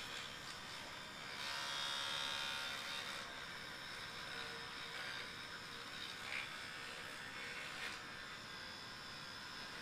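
Oral-B electric toothbrush buzzing steadily as it brushes a monkey's teeth. About a second in, the buzz gets louder for about two seconds.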